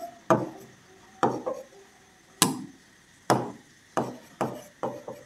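A pen knocking and tapping against a writing board as words are handwritten: about eight sharp knocks at uneven intervals, each dying away quickly, the loudest about halfway through.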